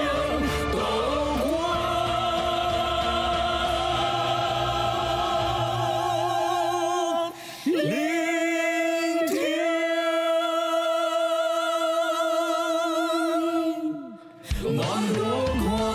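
Two male and two female voices singing long held notes together in harmony, with vibrato. After a short break about halfway through, the voices go on without the band's low accompaniment. After another brief break near the end, the full band comes back in.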